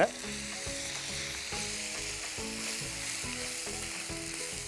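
Raw chicken pieces sizzling steadily in hot ghee in a cast-iron skillet as they are stirred and turned with a spatula, at the start of sautéing.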